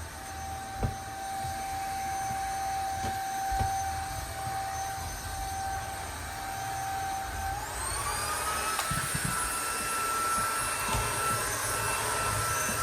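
Vacuum cleaner running with a steady motor whine that rises in pitch about eight seconds in, as the motor speeds up, and then holds at the higher pitch. Occasional low knocks sound beneath it.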